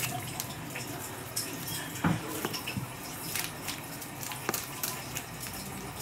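Raw ground beef being mixed by hand in a bowl: irregular wet squishing with scattered small clicks.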